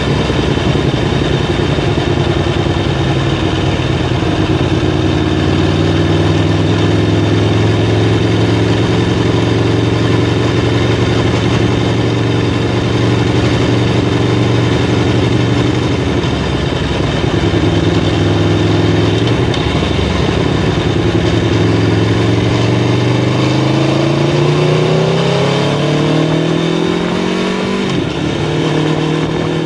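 Aprilia Tuono V4 Factory's V4 engine running at a steady cruise with wind rushing past, then climbing in pitch under acceleration about twenty-four seconds in, dropping sharply at an upshift near the end and starting to climb again.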